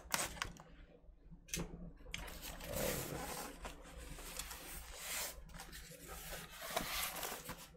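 Scissors cutting the tape on a cardboard mailer box, a few sharp snips in the first second or two, then cardboard rubbing and scraping as the box is pulled open and an inner box slid out.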